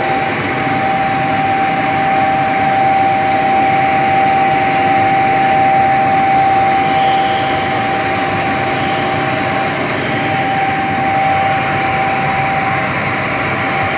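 Plastic pelletizing line running: the steady drone of its extruder and cutting machinery, with a constant whine over it.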